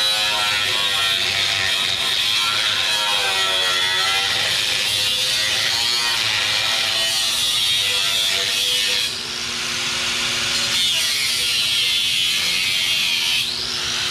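Electric angle grinder with a cut-off wheel cutting through a steel truck frame rail: a steady, high hissing screech. It eases off briefly about nine seconds in and resumes. Near the end the grinder is switched off and its pitch falls as it spins down.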